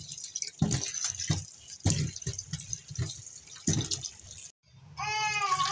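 Tap water running onto potatoes in a steel bowl in a stainless-steel sink, splashing unevenly as hands rub them clean. The water sound cuts off a little past four seconds in, and near the end a long, high pitched wail begins.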